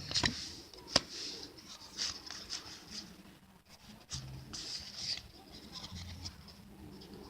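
Pokémon trading card booster pack being handled: the foil wrapper crinkles and the cards rustle and slide against each other in bursts, with a sharp click about a second in.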